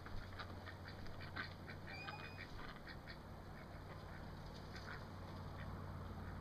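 Domestic ducks quacking faintly in scattered short calls while they forage.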